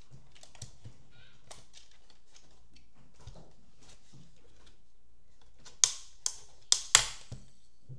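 Plastic FPV goggles (Skyzone Cobra X V4) being handled, with light taps and rustles, then four sharp plastic clicks about six to seven seconds in as the battery compartment is worked open.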